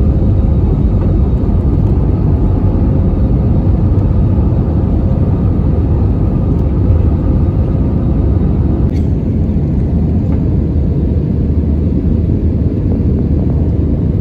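Steady roar of an airliner's jet engines and rushing air, heard from inside the passenger cabin while climbing out after takeoff. About nine seconds in the sound changes abruptly: a faint steady hum drops out and the roar carries on.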